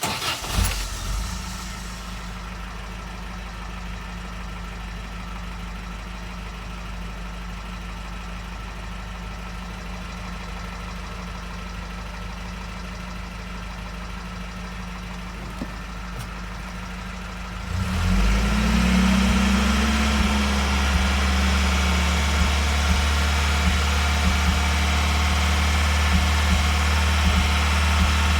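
Toyota 22RE 2.4-litre four-cylinder engine idling steadily, then about 18 seconds in brought up to a higher, louder held speed. At that speed it runs with irregular small stumbles, the sign of the random misfire that shows between about 2000 and 3000 rpm.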